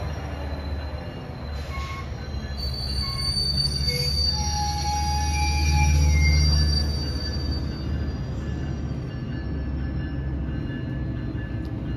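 Double-deck passenger train cars rolling past along the platform: a steady low rumble from the wheels and running gear, with thin high-pitched wheel squeal that is loudest around the middle and fades out near the end.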